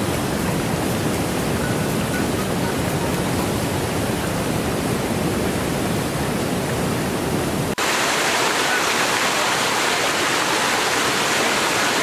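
Tiered waterfall cascading over stepped rock ledges, a steady rush of falling water. About eight seconds in it cuts to a brighter, hissier rush of white water pouring over boulders close up.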